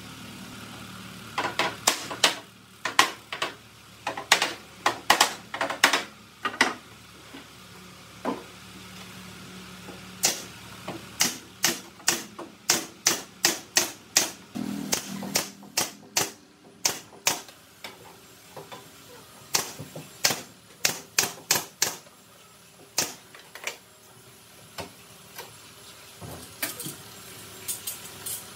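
Pneumatic nail gun firing a string of sharp shots into the wooden cabinet panels. The shots come in runs a few tenths of a second apart, with pauses between the runs.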